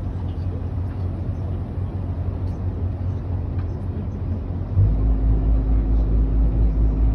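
Tour boat's engine running with a steady low drone. About two-thirds of the way in it suddenly grows louder and deeper, with an even pulsing throb.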